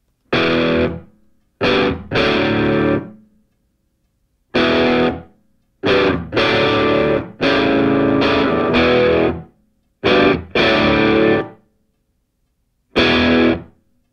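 Rock music with distorted electric guitar, heard in short bursts of one to two seconds with complete silences between them.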